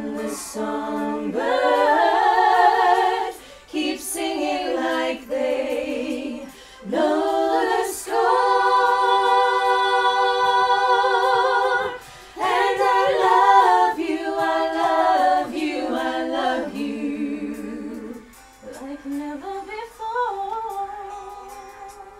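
Female voices singing a song without instruments, with long held notes and short pauses between phrases; the singing grows quieter in the last few seconds.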